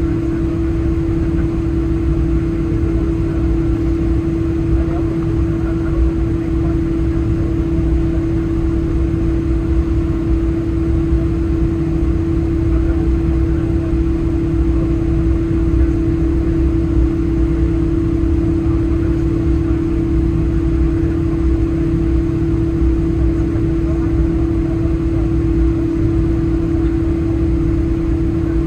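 Cabin noise of a Boeing 777-200 taxiing on its engines at idle: a steady low rumble with one loud, unchanging hum.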